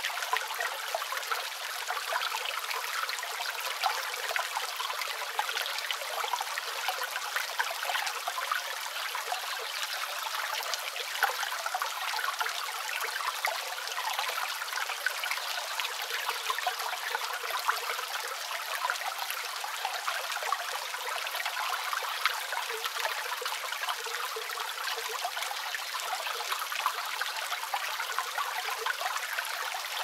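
A small creek waterfall trickling and splashing down over tree roots: a steady rush of water dotted with many small splashes and drips, light and hissy with no deep rumble. Rain is falling on leaves as well.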